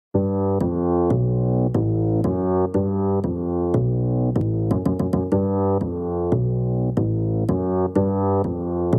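Instrumental intro of an electronic hip-hop beat: keyboard chords changing about twice a second, filtered so they sound muffled, with crisp ticks laid over them and a quick roll of ticks about halfway through. It begins just after the start, out of silence.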